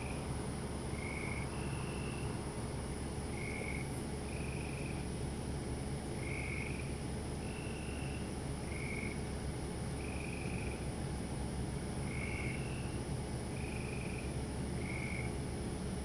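Several frogs calling in turn, short notes at slightly different pitches roughly once a second, over a steady high-pitched drone of crickets and a low steady rumble.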